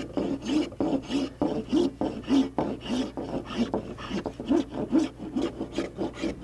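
Block plane shaving the edge of a quartersawn Douglas-fir deck plank by hand in quick rasping strokes, about two a second. The plane is cutting a bevel on the plank's edge to open a seam for caulking.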